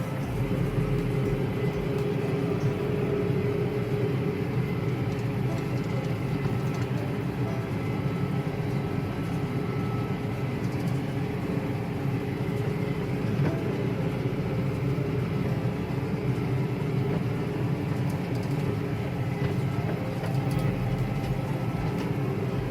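Tractor engine running steadily under load while pulling a round baler through a hay field, a continuous even drone.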